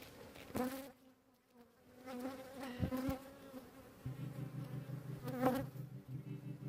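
Honey bees buzzing at the entrance of a hive busy with returning foragers, with individual bees flying close past the microphone now and then. The buzz thins out about half a second in and swells back strongly after about four seconds.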